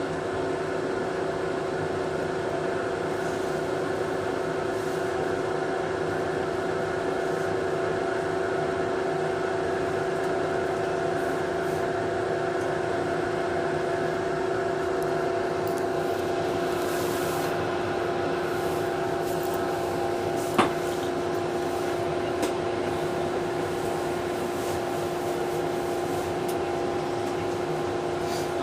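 Subway car's ventilation and auxiliary equipment running with a steady pitched hum, the sign of power restored to the stalled train. A single sharp click about twenty seconds in.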